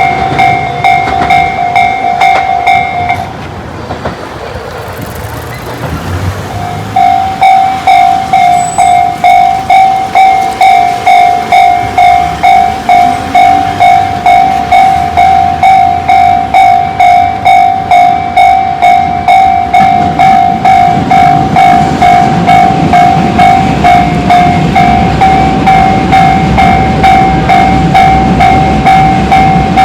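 Electronic railway level-crossing alarm, Tobu's 'sound C' type, ringing a steady tone in pulses about twice a second. It breaks off just after 3 s and starts again about 7 s in, over the low rumble of a train that grows in the second half.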